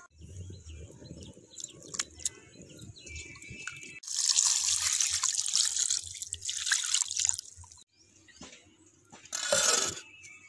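Water pouring and splashing over raw mutton pieces in a pot as the meat is washed, loudest for about three seconds in the middle, with a shorter splash near the end.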